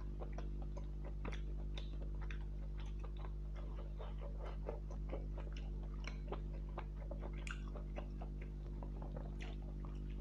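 A person chewing and smacking while eating rice and fish curry: many short, irregular wet clicks and smacks, over a steady low electrical hum.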